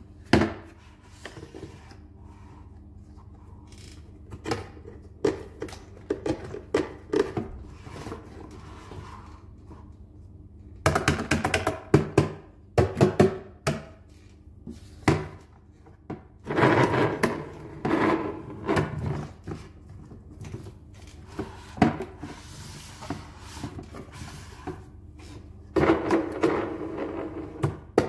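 Hard plastic parts of a large toy dump truck being handled and fitted together: irregular knocks, clicks and scraping as the dump bed and chassis are pressed and slid into place, busiest in clusters through the middle and near the end.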